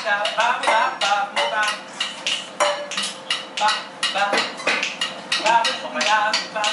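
Metal ladles and utensils banged on woks and pots in a rough rhythm, about two to three strikes a second, with voices between the strikes.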